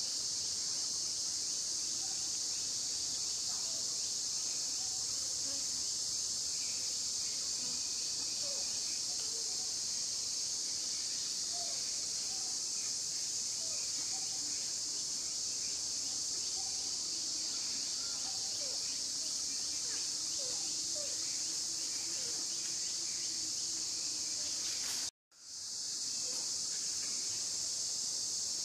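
Steady, high-pitched drone of insects calling, with faint short chirps underneath. The sound cuts out for a moment near the end, then resumes.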